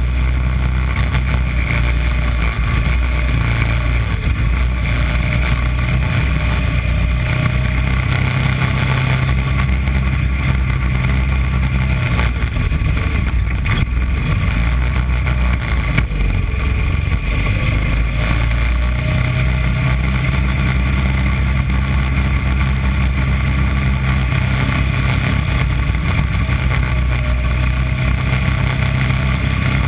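Mini Corvette racing kart's engine running at race pace, heard close up from the car's nose, with a steady rush of wind and road noise. The deep engine note drops back for several seconds mid-way, then picks up again.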